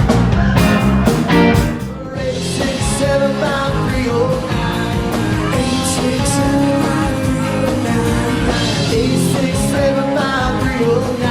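Rock music with a singing voice. Hard, regular beats for about the first two seconds, then a softer passage carried by the vocal line.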